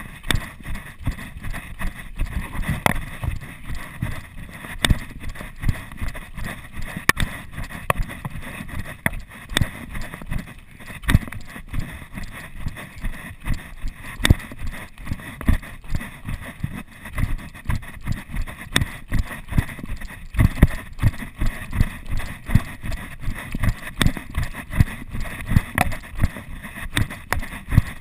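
Footsteps on a dirt and gravel trail, picked up through a chest-mounted GoPro Hero 2: a steady, even rhythm of dull thuds from a brisk downhill hike or jog, with the camera jostling.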